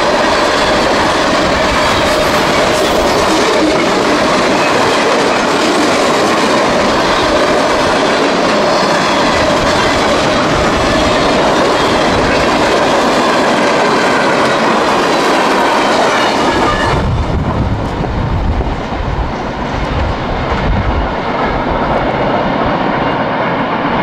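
Freight train cars rolling past over a grade crossing: steady clatter and rumble of steel wheels on rail, with a thin wavering squeal from the wheels. About 17 seconds in the sound turns abruptly deeper and duller, a low rumble of a freight train moving away down the line.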